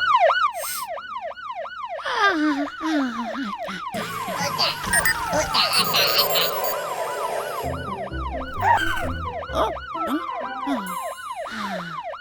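Cartoon siren sound effect wailing in a fast up-and-down yelp, about three sweeps a second, with a falling slide about two seconds in and music playing under it in the middle.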